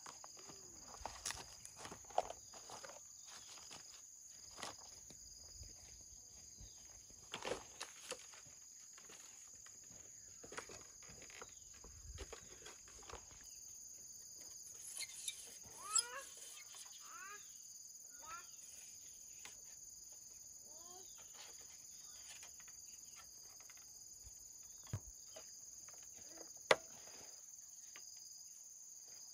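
Steady high-pitched insect drone, with scattered knocks and clicks and a run of short, falling animal calls about halfway through.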